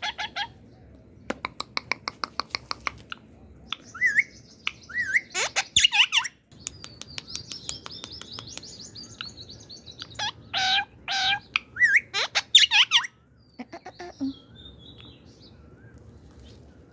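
Indian ringneck parakeet calling: rapid clicking chatter, short rising and falling whistled chirps, and a run of loud squawking calls about ten seconds in, after which it goes quieter.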